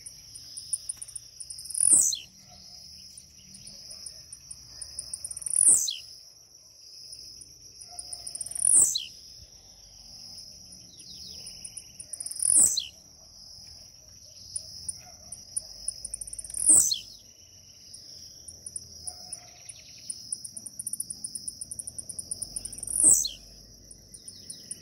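Caged blue-black grassquit (tiziu) giving its short, sharp jump song, a quick buzzy note sweeping steeply down in pitch, six times, every three to six seconds. A steady high insect trill runs underneath.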